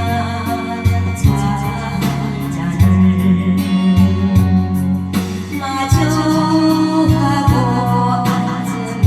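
A Korean song with a backing band keeping a steady beat under sustained bass notes, with singing.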